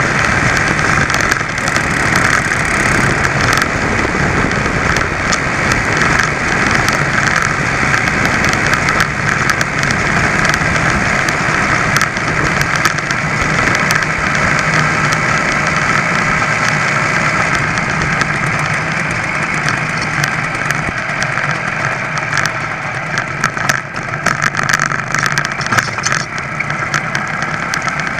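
ABG (Velo) VAP moped's small two-stroke engine running steadily under way, slightly quieter in the last several seconds.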